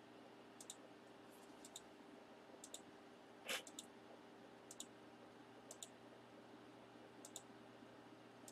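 Faint computer mouse clicks, each a quick double tick, about one a second, as a web page button is clicked over and over. There is one louder brief noise about three and a half seconds in.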